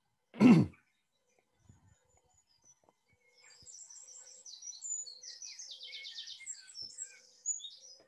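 Eurasian wren singing loudly: a fast, high song of trills and rattles lasting about four seconds, starting about three and a half seconds in. Under it a European turtle dove purrs softly and repeatedly. One loud short sound, falling in pitch, comes about half a second in.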